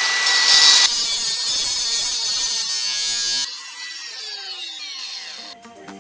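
Angle grinder with a diamond blade grinding concrete nails out of a brick wall, a loud grinding rasp over a steady motor whine. About three and a half seconds in the cutting stops and the whine falls in pitch as the blade winds down.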